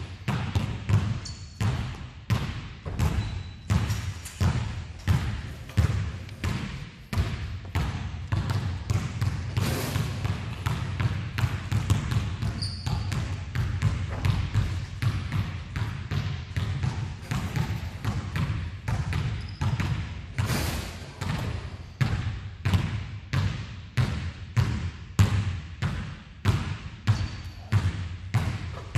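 Basketballs bouncing repeatedly on a hardwood gym floor, about one to two thuds a second, echoing in the large hall.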